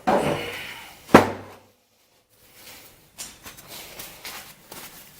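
Engine parts and hand tools handled on a workbench while removing loosened cylinder-head bolts. A knock, then a sharp, loud knock about a second in, then faint clicking and rubbing.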